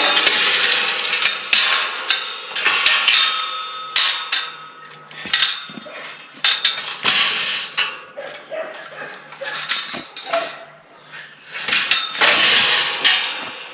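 Metal wire-panel gate being handled and fitted onto its hinges: irregular clanks, scrapes and rattles of metal, with sharp knocks scattered through and a louder stretch near the end.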